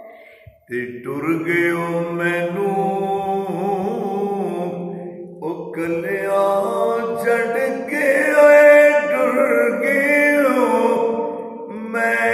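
A solo male voice chanting a devotional kalam in long, drawn-out notes with a wavering vibrato, pausing for breath about half a second in and again about five seconds in.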